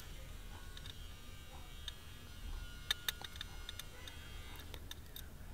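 Quiet clicks of plastic fasteners being worked out of a car's plastic underbody splash shield, a few about three seconds in, over a low steady hum.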